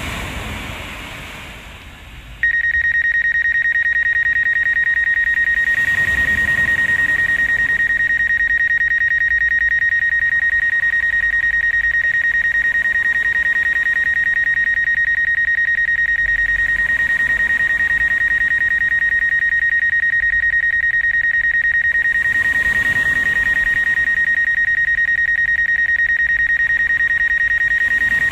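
A steady, high-pitched electronic alarm tone with a buzzy edge. It switches on about two seconds in and holds unbroken and loud from there, over gusts of wind on the microphone.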